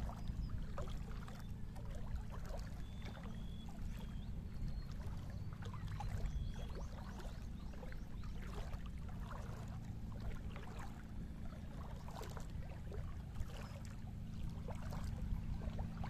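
Small ripples of calm sea lapping and trickling in shallow water over rock and sand, in many small irregular splashes, over a steady low wind rumble on the microphone.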